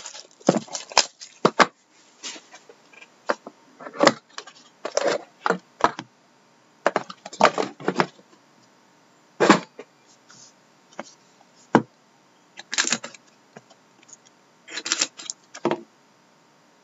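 A box of trading cards being handled and opened by hand: irregular clicks, taps, scrapes and rustles of cardboard in short bursts with pauses between them.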